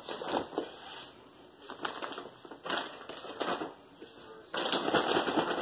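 Irregular crunching and rustling handling noises in several short bursts, the longest and loudest near the end.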